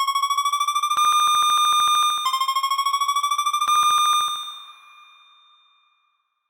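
Synthesized pachinko jackpot sound effect, remade to imitate the Symphogear machine's big-win sound: a bright electronic alarm-like tone with rapid pulsing. It rises slightly in pitch, holds, rises again about two seconds in, then fades out near the end.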